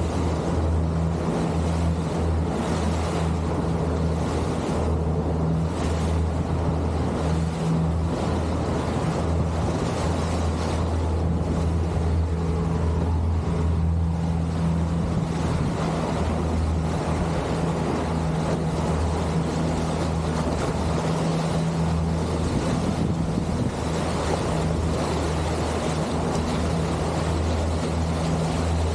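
Boat motor running steadily at trolling speed with a low, even hum, under a wash of wind and water noise.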